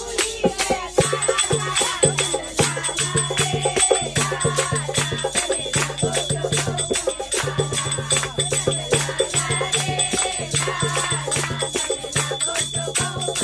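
A group singing a Hindu devotional bhajan, accompanied by jingling hand-held tambourines struck in a quick, steady beat and by hand clapping.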